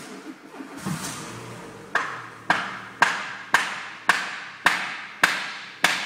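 Renault Scenic's 1.6-litre 16-valve four-cylinder petrol engine (K4M) running with a low steady hum. From about two seconds in, a sharp tick that rings on repeats about twice a second and is louder than the engine.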